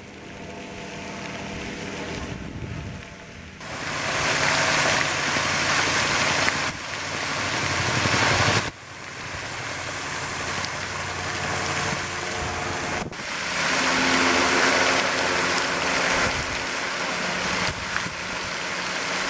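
Tall garden fountain jet falling back into its basin: a loud, even splashing hiss of water that grows louder about four seconds in, with a faint low steady hum beneath.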